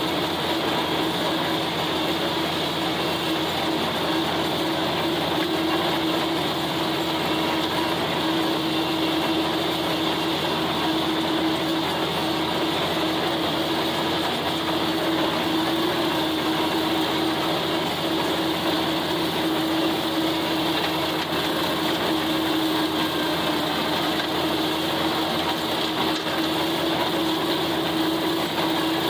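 John Deere 4020 tractor's six-cylinder engine running steadily under load while pulling a flex-wing rotary cutter through dry stubble. The sound is one even machine drone with a strong steady hum that does not change.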